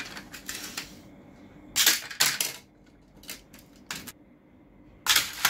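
Hard plastic clicks and clatter from a toy car ejection track set: a couple of loud snapping bursts about two seconds in, two single clicks after them, and another loud snap near the end.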